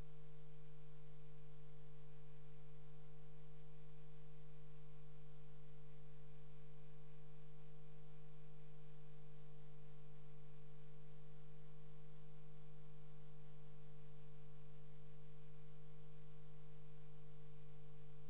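A steady hum made of a few constant tones, the low one loudest, with a fainter higher tone and a faint high whine above it. It does not change at all and has no other sound over it.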